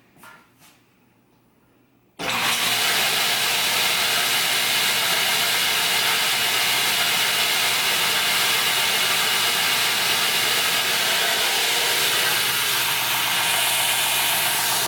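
A couple of faint knocks, then a homemade 2x72-inch belt grinder switched on about two seconds in and running steadily: motor and abrasive belt running over the wheels. It is a test run to check the belt's tracking after a spacer plate was added.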